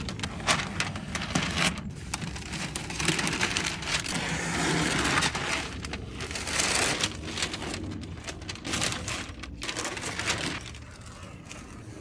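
Blue painter's tape and green masking paper being peeled off a spray-painted mini fridge: tape ripping away in short crackles, with paper crinkling and rustling, densest in the middle.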